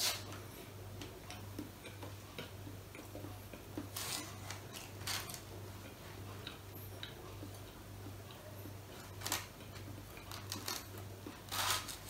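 A few faint clicks and scrapes of a metal fork against a cooking pot as a boiled potato is speared out, over a low steady hum.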